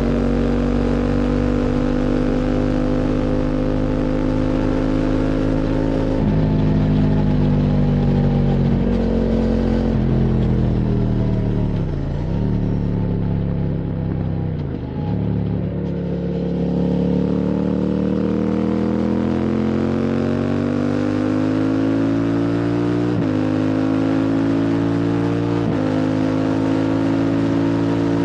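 QJ Motors SVT650X parallel-twin motorcycle engine through an Arrow slip-on exhaust, heard close up on the move. The engine note falls away from about six seconds in as the bike slows, dips sharply twice, then climbs again under acceleration with two quick upshifts near the end.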